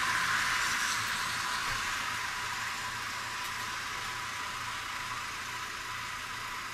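Steady hiss of a rain-soaked street, with rain and traffic on the wet road, slowly fading over the first few seconds, with a faint low hum beneath.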